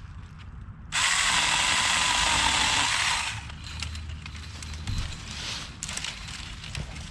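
Saker mini electric chainsaw cutting a tree branch: it starts suddenly about a second in and runs for about two seconds, then falls away to light clicks and rustling of branches.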